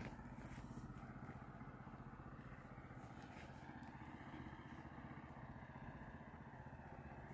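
Faint, steady low hum of a running motor or engine, even in pitch.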